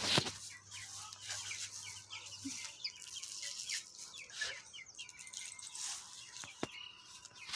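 Chickens and chicks calling while they feed: many short, high chirps scattered through, with a few sharp clicks, the loudest right at the start.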